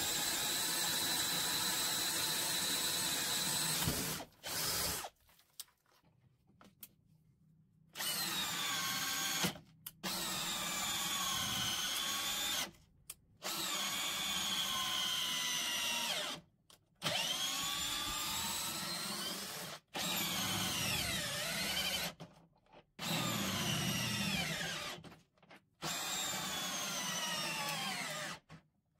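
Bosch GSR 18V-55 brushless cordless drill/driver boring into wood with an auger bit, its motor whine steady for about four seconds. After that come about seven short runs of the drill, each a few seconds long with gaps between them, the whine dropping in pitch as the motor is loaded driving a screw in a torque test.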